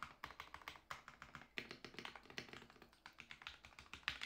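Fast typing on a Ducky One 2 Mini 60% mechanical keyboard whose Cherry MX Silver linear switches have all been lubed: a quick, uneven run of key clacks, several a second.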